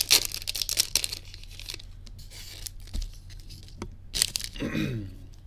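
Foil trading-card booster pack torn open by hand, its wrapper crackling and crinkling, most densely in the first two seconds.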